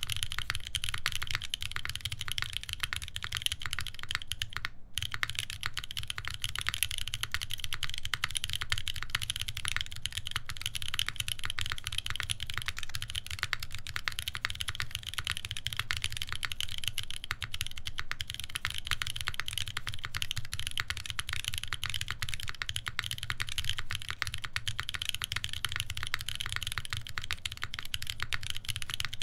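Continuous typing on a UNIKORN R2.1 mechanical keyboard with an FR-4 plate, GMK keycaps and lubed Boba U4T tactile switches: a dense, steady stream of keystroke clacks, with a split-second gap about five seconds in.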